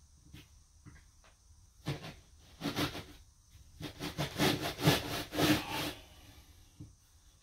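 A long level scraped across a cement mortar shower bed in a run of scraping strokes between about two and six seconds in, screeding the mortar to level and slope it toward the drain.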